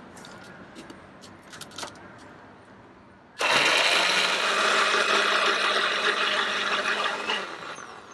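A few faint clicks, then about three and a half seconds in an electric blender switches on suddenly and runs loud and steady for about four seconds, blending a thick chutney, before winding down near the end.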